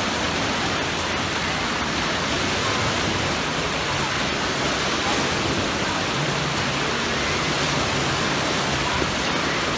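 Steady rush of surf in a wave pool, waves breaking and washing through the shallow end.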